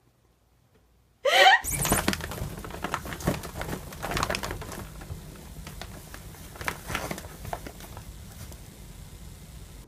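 Near silence for about a second, then a brief rising cry. After it come scattered rustles and soft knocks over a low steady room hum as a cat climbs a hanging fabric shoe organizer.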